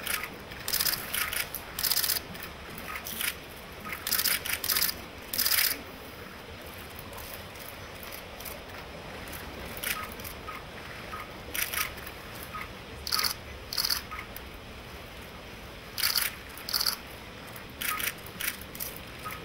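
Press photographers' camera shutters clicking in quick, overlapping bursts, with a lull in the middle.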